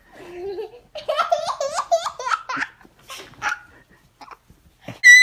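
Young girl laughing in quick, high-pitched giggles, with a short breathy lull midway and a loud, high burst of laughter right at the end.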